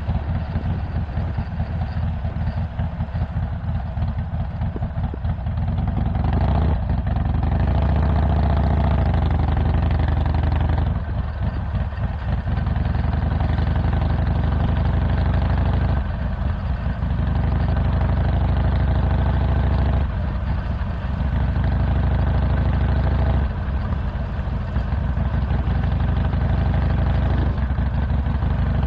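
Harley-Davidson Iron 1200 Sportster's air-cooled V-twin, Stage 1 with a 2-into-1 Cobra El Diablo exhaust, running: low and steady for the first six seconds, then louder as the throttle opens, with the note dropping briefly several times.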